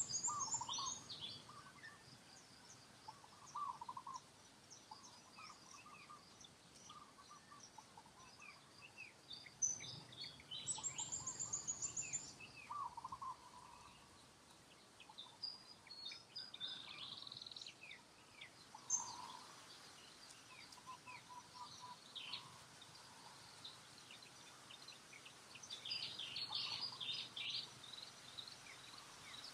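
Several birds chirping and calling in short, varied phrases and trills, some high and some lower, over a faint steady background hiss.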